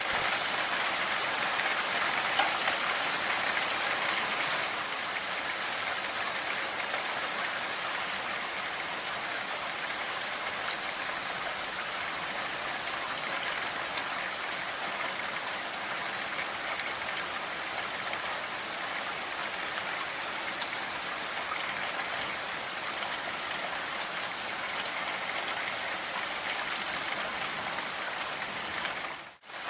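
Steady rain falling, a dense, even hiss of many drops with faint individual ticks. The sound dips briefly almost to nothing just before the end, then returns.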